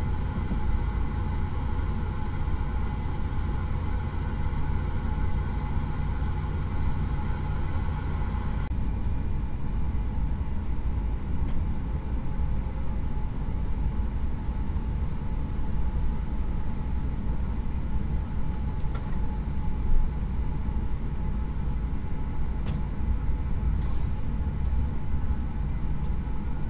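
Steady low rumble and hum inside an Akita Shinkansen Komachi passenger car. Several steady whining tones sit over the rumble and cut off abruptly about nine seconds in, after which the lower rumble carries on with a few faint clicks.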